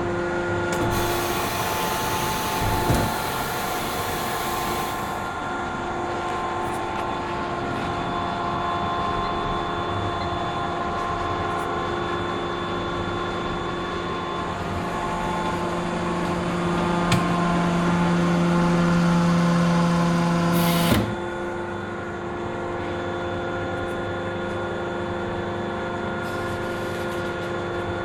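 Melamine press machine running through its cycle: a steady machine hum with several held tones. A hissing noise comes in the first few seconds. About three quarters of the way through, a low hum swells louder, then cuts off suddenly with a knock, and the steady running goes on.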